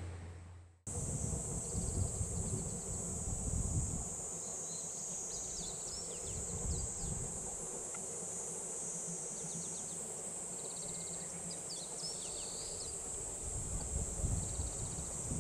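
Summer insects droning steadily in one high, even band, coming in about a second in, with a few short chirps and buzzy trills above it and some low rumbling at the start and near the end.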